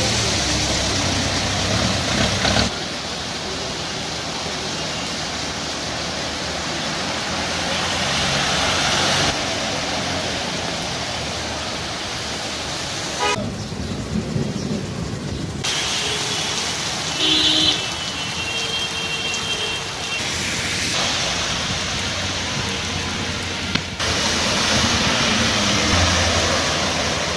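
Motor vehicles driving through a flooded street: a steady wash of splashing water and tyre spray with engine noise, changing abruptly several times between takes.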